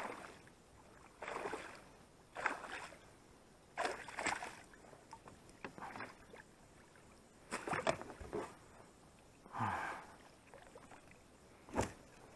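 Water splashing and swishing beside an inflatable boat in a series of separate strokes, one every second or two, with a sharp knock near the end.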